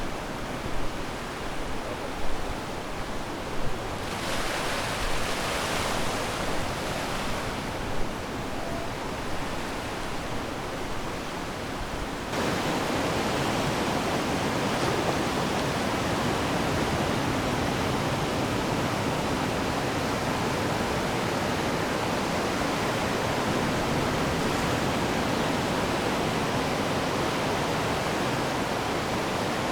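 Ocean waves washing up on the shore, with surf surging and drawing back, then an abrupt change about twelve seconds in to a steadier, denser wash of surf.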